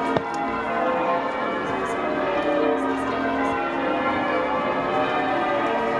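Church bells ringing a peal: many bells struck in quick succession, their tones overlapping and ringing on.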